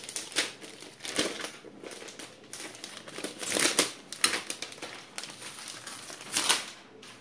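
Thin clear plastic wrapping crinkling and rustling as it is pulled off a bathroom scale, in irregular bursts.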